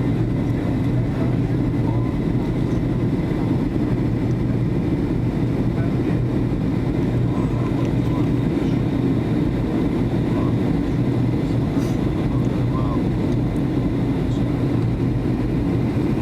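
Steady low rumble and drone of a Boeing 757 in flight, heard from inside the passenger cabin: engine and airflow noise holding even throughout.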